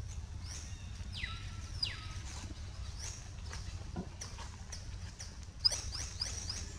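High-pitched animal chirps: many short calls, each sliding quickly down in pitch, over a low steady background rumble, with one sharp click near the end.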